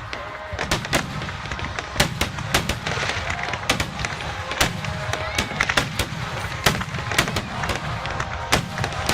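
Aerial fireworks display: shells bursting in quick, irregular succession, with many sharp bangs, some pairs a fraction of a second apart, over a low continuous rumble.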